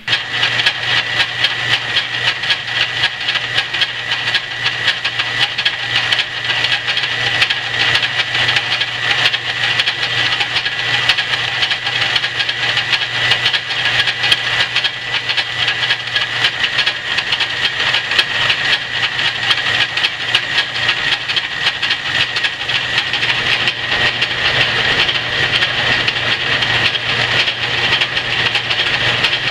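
Antique Rockford metal lathe running in reverse with a lathe tool taking a facing cut across a spinning metal disc: a steady hiss from the cut over a low, even hum from the lathe's drive.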